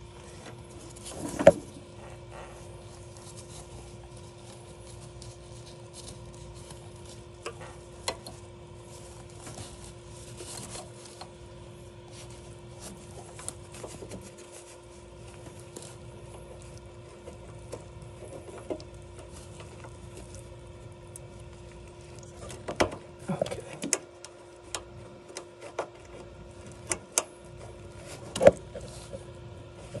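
Small clicks, scrapes and rustles of gloved hands fitting a plastic clip and thermistor onto a copper pipe inside a heat pump water heater, with a few sharper knocks about a second in and near the end. A steady low hum runs underneath.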